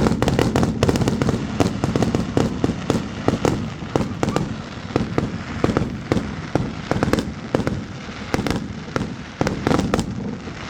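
New Year's Eve fireworks: a dense barrage of firecracker and rocket bangs, several a second, over a steady crackle, thinning out near the end.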